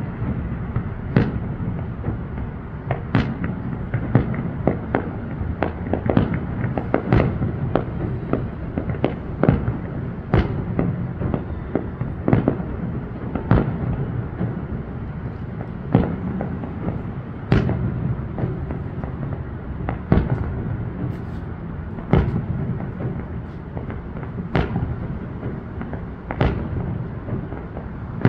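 Aerial fireworks display: a continuous rumble of booms with sharp bangs on top, crowded together in the first ten seconds, then single reports every second or two.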